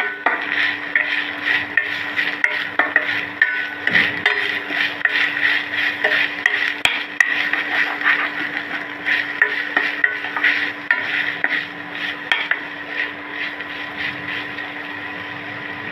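A spatula stirring and scraping onions, green chillies and ginger-garlic paste as they fry in oil in a steel pan, in quick repeated strokes over a steady low hum. The paste is being fried until its raw smell is gone. The strokes thin out near the end.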